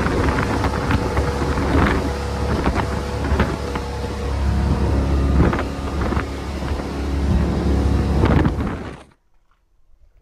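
Fountain powerboat underway: its engine drones steadily at speed under wind and rushing water, with scattered knocks through the roar. The sound cuts off abruptly about nine seconds in.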